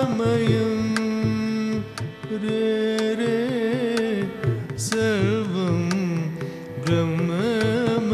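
Carnatic music: a melody of long held notes, ornamented with wavering, sliding pitch, over a steady drone, with hand-drum strokes punctuating it.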